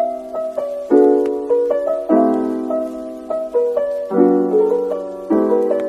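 Background music: piano chords, a new chord struck every second or so and left to ring and fade.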